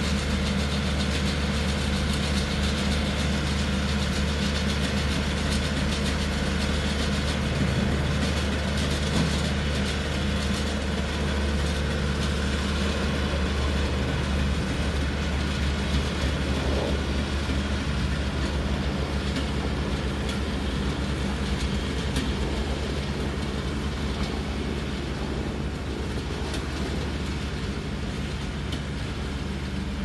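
New Holland Boomer 50 compact diesel tractor running steadily under load while driving a mini round baler through windrowed hay. It gets slightly fainter near the end.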